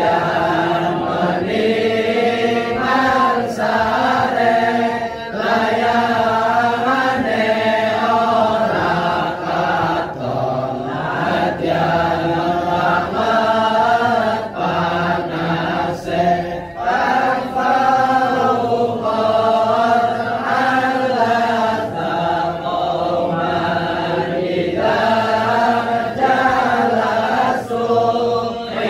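A crowd of men chanting together in unison, an Islamic devotional chant sung in continuous phrases that rise and fall in pitch.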